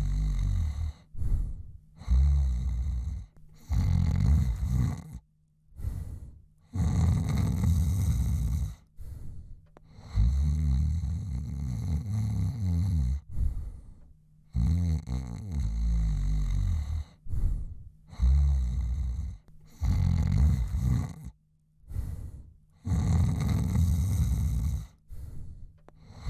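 A man snoring in his sleep: long, low, rattling snores one after another, each one to three seconds long, with short breaks between breaths and a few brief snorts between them.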